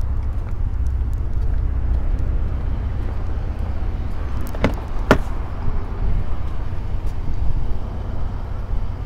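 Car door latch of a Lincoln Navigator being worked open: two sharp clicks about half a second apart, over a steady low outdoor rumble.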